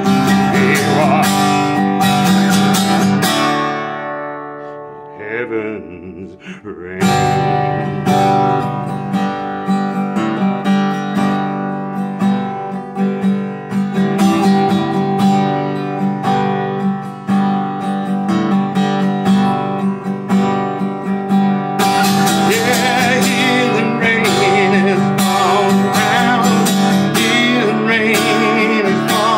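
Acoustic guitar strummed in steady chords, with a man singing over it. About four seconds in the strumming drops away to a ringing, fading chord and light picking, then resumes strongly around seven seconds in; the singing comes back over the strumming near the end.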